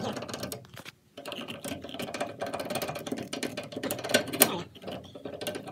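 Rapid clicking and rattling of metal parts as hands work inside a table saw's blade opening, with a short pause about a second in and a couple of sharper knocks near the end.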